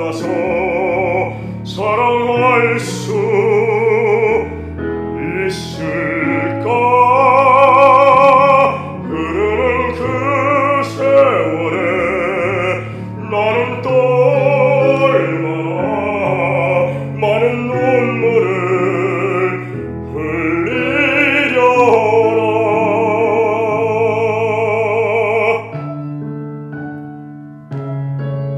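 A male singer sings a slow ballad in a classical, operatic style with strong vibrato over a keyboard accompaniment, recorded plainly without studio equipment. The voice stops a couple of seconds before the end, leaving the keyboard playing alone.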